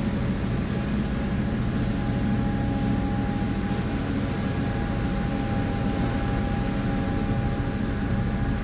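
Boat's engine running steadily under way, a constant low drone with a steady tone, over an even rush of noise.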